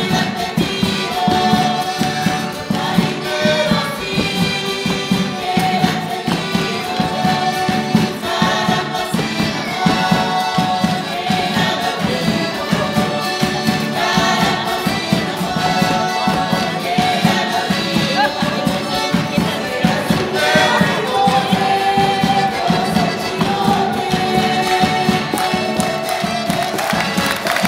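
Live cueca chilota from a folk ensemble: several voices singing together over strummed acoustic guitars, accordion and a beating bass drum, in a steady, lively rhythm.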